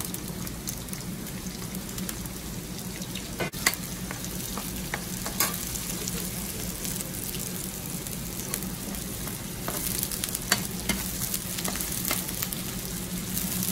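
Chopped onion sizzling in hot oil in a nonstick frying pan, with a metal spoon clicking and scraping against the pan now and then as it is stirred.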